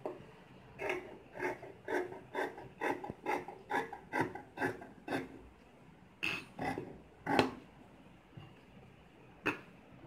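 Large tailoring scissors snipping through thin cloth: a steady run of cuts about two a second, then a few louder snips near the middle and one more near the end.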